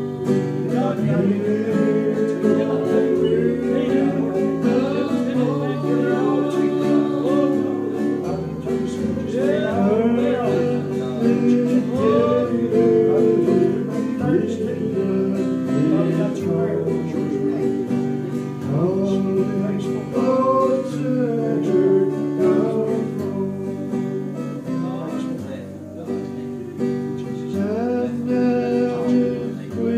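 Live church music: guitar with a steady bass line under singing.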